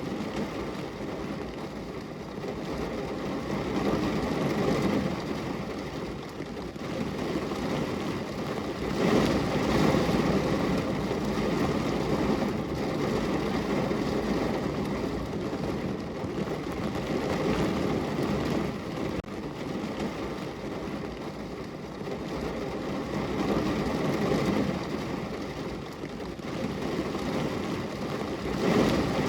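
Rain falling on a car window: a steady rushing noise, deep and full, that swells and eases every few seconds.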